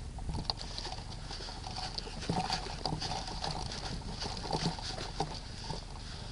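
Irregular soft clicks and rustling over a steady outdoor noise, like a player's footsteps and gear moving close to the microphone, with a few louder clicks between about two and five seconds in.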